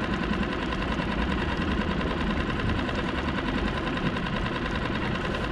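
Small boat's engine idling steadily, a continuous even running sound.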